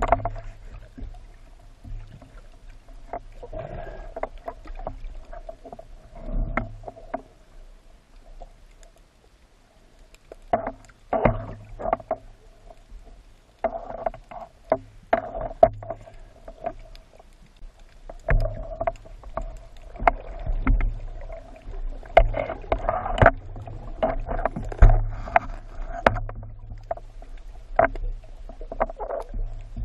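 Underwater sound of a breath-hold spearfishing dive, heard through a camera's waterproof housing: a steady hum with irregular sharp clicks and knocks, fewer and quieter for a few seconds near the start and thickest in the second half.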